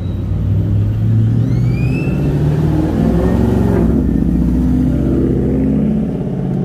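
A motor vehicle driving by close on the street, its engine rumble running loud with a shifting pitch.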